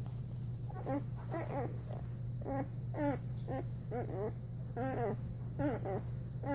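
Newborn Newfoundland puppies squeaking and whimpering: about ten short, wavering high cries in quick succession over a steady low hum.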